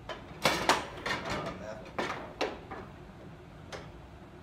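Foosball game: sharp wooden knocks and clacks as the ball is struck by the rod-mounted players and bangs against the table, several in quick irregular succession, with one more near the end.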